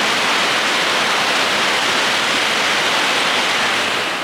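Eight-car Sanyo Shinkansen train running into the platform, a loud, steady rush of air and wheel noise that eases slightly near the end as the train slows.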